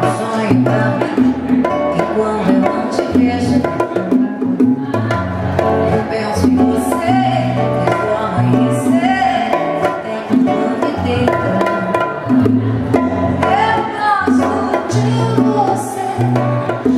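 Live acoustic band music: acoustic guitar and hand percussion over low held bass notes. A woman's singing voice comes through, clearest near the end.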